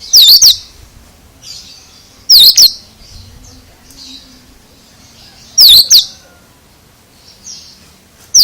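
Oriental magpie-robin (kacer) giving a loud, unusual short call four times a few seconds apart, each call a quick run of two or three whistled notes sweeping down then up, with faint chirps in between.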